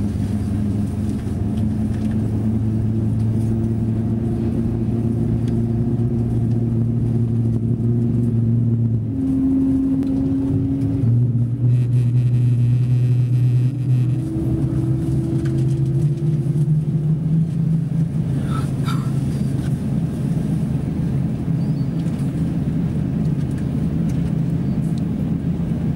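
Airbus A350-900 cabin noise while taxiing: the steady rumble of its Rolls-Royce Trent XWB engines at taxi power, heard from inside the cabin, with a low droning hum that shifts in pitch a few times.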